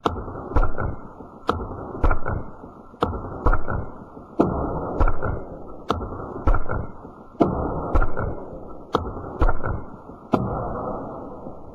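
A series of sharp knocks or chops, irregular at roughly two a second, each trailing off into a muffled rumble.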